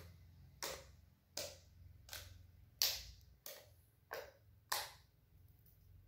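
Freshly made toothpaste-and-shampoo slime being pressed and folded against a tile floor, giving a series of about seven short, sharp clicks, a little under one a second. These are the slime's clicks, the test that shows it has set.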